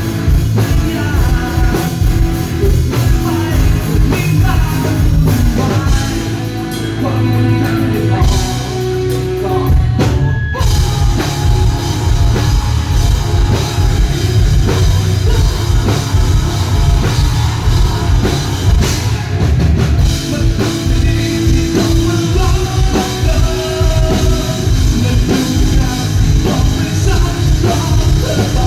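A rock song with singing and a drum kit, played loud and heavy in the bass through a sound system being sound-checked. The music eases for a couple of seconds about six seconds in and breaks off for a moment about ten seconds in.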